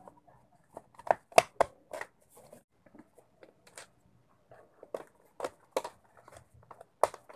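Irregular sharp plastic clicks and taps as a hand mixer's plastic housing is handled and screwed shut with a screwdriver. The loudest cluster comes about a second in, with a few more clicks near the end.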